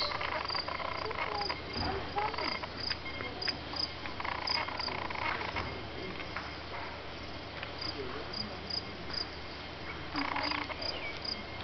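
Night insects, crickets by the sound of it, chirping: a short high chirp repeating about two or three times a second over a low steady hiss.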